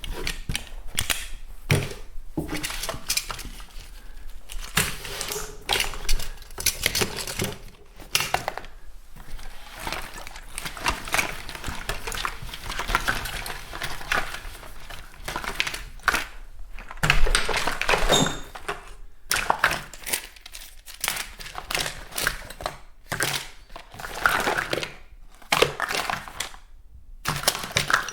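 Someone rummaging through a bathroom cupboard: items such as bottles and packets shuffled, knocked together and crinkled in an irregular stream of clatters and rustles, with brief pauses between bursts.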